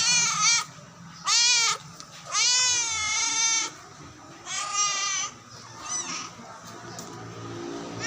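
Kitten meowing repeatedly: four high, wavering meows, the third the longest at over a second, then a fainter short one.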